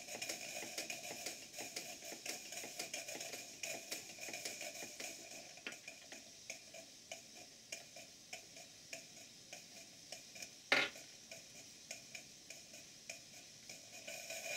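Live-steam model hypocycloidal engine and beam engine running quietly: a light, fairly regular ticking from their moving parts over a soft steady hiss, with no exhaust chuff because the chuffing apparatus is out of the chuffing pot. One sharper click comes about eleven seconds in.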